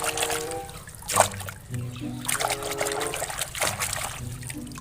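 Water splashing and trickling in short bursts, the strongest about a second in and again near the end, over a simple background melody.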